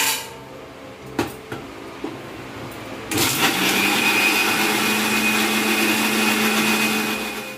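Electric mixer grinder (Jaipan) running, grinding a thick green chutney in its steel jar. The motor starts about three seconds in and runs steadily with a whine, then begins to wind down at the end. Before it starts there are a couple of sharp knocks.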